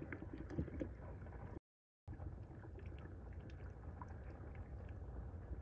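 Engine coolant draining out of a disconnected heater hose into a drain pan: a faint, steady trickle with a few small clicks. The sound drops out completely for about half a second near the start.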